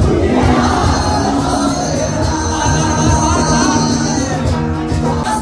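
Live band music played loudly through a hall's sound system, with a singer and a crowd shouting along.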